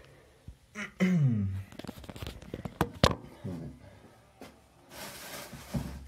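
Hard objects being handled: scattered knocks and clinks, two sharp ones about three seconds in, with a short low sound falling in pitch about a second in and a spell of rustling near the end.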